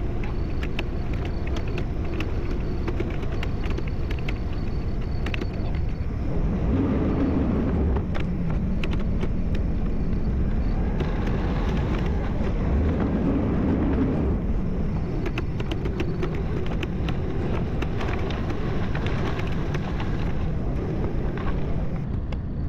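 Kubota skid steer's diesel engine working steadily while grading rock with a grader attachment. It swells twice under heavier load, with scattered short clicks throughout.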